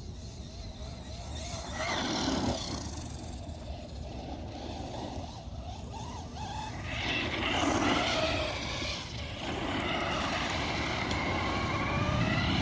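Traxxas Rustler 4x4 VXL RC truck driving: its brushless electric motor whines, rising and falling in pitch in several bursts of acceleration, over a steady low rumble.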